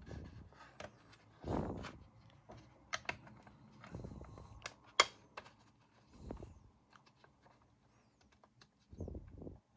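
Small plastic parts of a Bodum coffee grinder being handled and fitted, the red start button worked into its opening in the housing: scattered light clicks and taps with brief rubbing noises, and one sharp click about halfway through.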